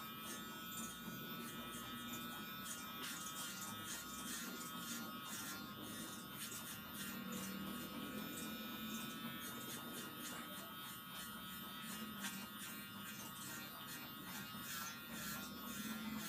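Cordless pet grooming clipper running steadily with a buzzing motor as it cuts through a shih tzu's matted coat.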